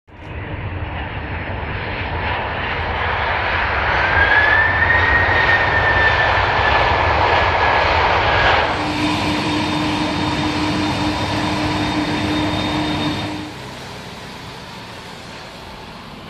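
Airbus Beluga transport aircraft's jet engines running loud on the runway: the noise swells over the first few seconds with a whine that glides up and then holds. About nine seconds in it changes abruptly to a steadier engine sound with a low hum, which falls away to a much quieter background a few seconds later.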